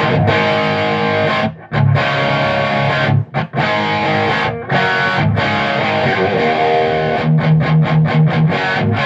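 Les Paul electric guitar played straight into a Marshall 100-watt tube amp head with no effects, overdriven: distorted chords ringing with short breaks, then a quick run of short muted chugs near the end.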